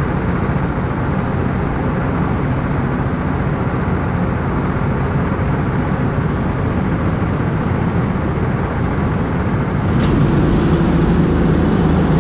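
Go-kart engine running steadily, close to the onboard camera. About ten seconds in there is a short click and the engine gets louder.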